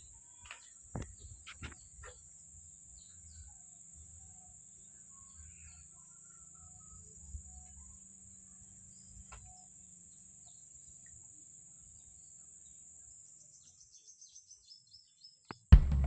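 Quiet rural outdoor ambience: a steady high insect drone with faint, scattered bird chirps and a low rumble, broken by a few soft knocks about a second in. Background music cuts in loudly just before the end.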